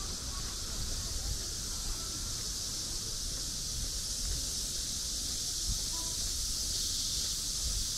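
Outdoor park ambience: a steady high hiss of insects over a low rumble, with a few faint bird chirps.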